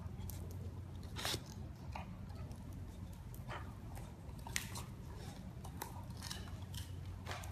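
Chow chow puppies moving about and chewing on a hard floor: irregular sharp clicks and taps over a low steady hum.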